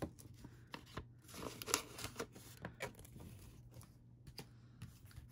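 Paper dollar bills rustling and crinkling as they are handled and slipped into a paper cash envelope: a run of short, scattered crinkles and taps over a low steady hum.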